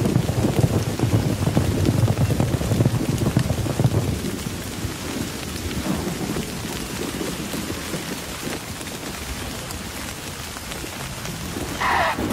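Heavy rain falling, with thunder rumbling low for the first few seconds before it settles into a quieter, steady rain hiss. A short, higher-pitched animal call cuts in near the end.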